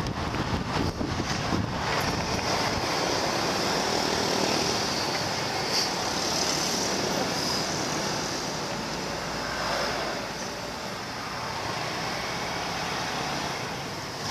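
Motorbike riding through road traffic: a steady mix of engine, rushing wind and road noise, with a constant high hiss.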